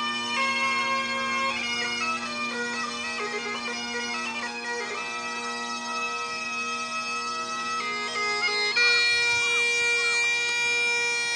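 Bagpipes playing: a melody on the chanter over a steady drone, inside a railway tunnel.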